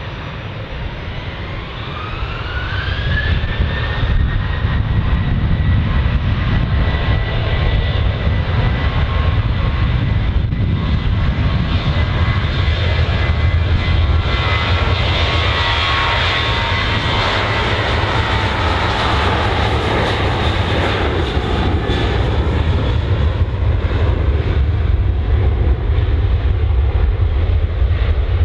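Jet airliner engines spooling up with a rising whine over the first few seconds, then a steady loud jet roar and rumble. The whine dips slightly in pitch later on as the aircraft passes.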